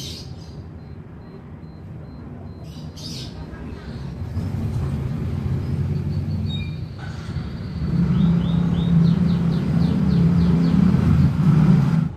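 Low engine rumble of a nearby motor vehicle, getting louder about four seconds in and loudest from about eight seconds in, then stopping suddenly near the end. Partway through, a bird gives a quick run of short rising chirps, about five a second.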